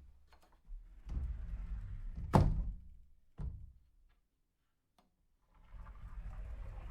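A door swung shut, closing with one loud thud about two and a half seconds in, followed a second later by a smaller knock. After a moment of dead silence, another softer, steady rustling sound begins.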